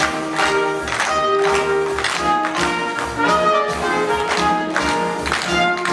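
Lively brass-led dance music with a steady beat, played for a chorus-line dance number in a stage musical.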